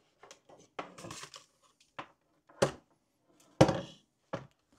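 Irregular small knocks and clatters, with two louder thuds about two and a half and three and a half seconds in.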